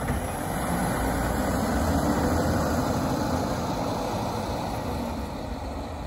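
Autocar ACX Labrie garbage truck's diesel engine pulling away, a low rumble that swells for about two seconds and then slowly fades as the truck moves off.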